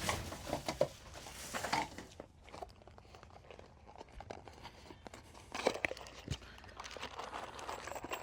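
Crinkling and rustling with scattered light clicks, a box or bag of screws being handled. The louder rustling comes in the first two seconds, with another cluster of clicks a little past the middle.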